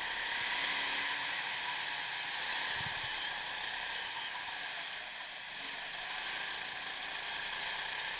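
Go-kart driving at speed on an indoor track, heard from on board as a steady, hissy running noise, with a brief low knock about three seconds in.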